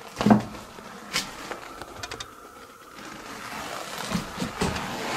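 Footsteps and handling knocks as someone walks through a debris-strewn room. There is a louder thump about a third of a second in, a quieter stretch, then several short scuffs and knocks near the end.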